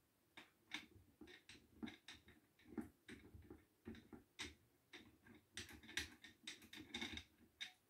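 Small plastic clicks and taps from handling a ring light and its tripod stand while fitting the two together, a few a second and irregular, coming thicker and faster near the end.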